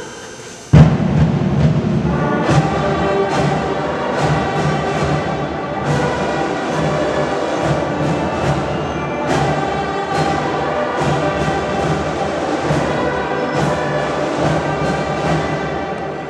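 Drum and bugle band playing: bugles sounding sustained notes over steady drum strokes. The band comes in together with a loud accented hit about a second in.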